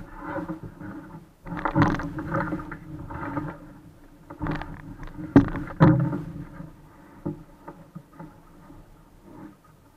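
Water splashing against a small sailing dinghy's hull, with several sharp knocks and thumps on the hull as a person climbs over the side; the sound fades near the end.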